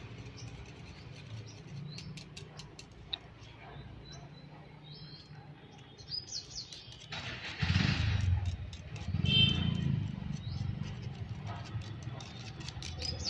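Outdoor background sound: small birds chirping over a low steady hum, with a louder rushing noise for a few seconds past the middle.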